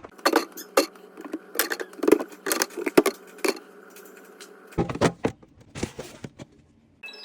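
Irregular clinks, taps and knocks of food containers and jars being handled and set down while a fridge is cleared out, with a heavier thud about five seconds in.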